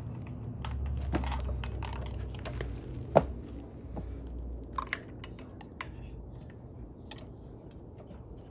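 Hands handling a plastic floodlight fixture and its metal mounting bracket: scattered small clicks, taps and rattles, with one sharper knock about three seconds in. There is a low rumble over the first few seconds.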